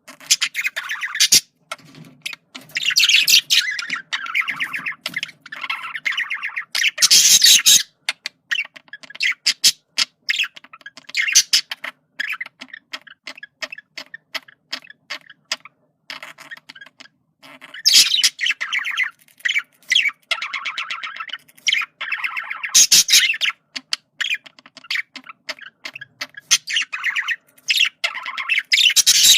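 Male budgerigar chattering and warbling, a fast run of clicks and short chirps, broken by several loud, harsh squawk bursts, with a softer stretch of chatter midway.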